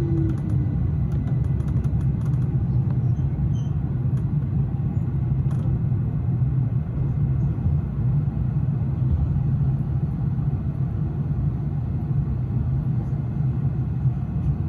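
Electric S-Bahn commuter train running, a steady low rumble of wheels and running gear heard from on board.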